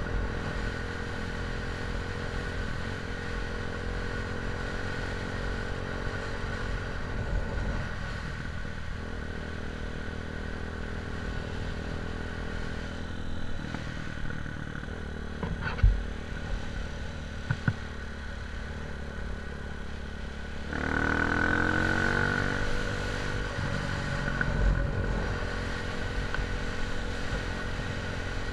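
A vehicle engine running steadily, revving up briefly about twenty seconds in, with two sharp knocks a little before that.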